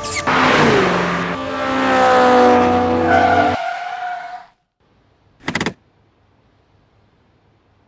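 Dramatic music with a car's tyre screech and skid over it, cutting off abruptly about three and a half seconds in. After a silence comes one short, sharp burst of sound about five and a half seconds in.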